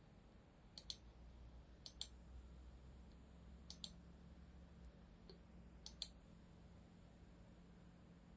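Computer mouse clicked four times at intervals of one to two seconds, each a quick double click of press and release, over a faint low hum.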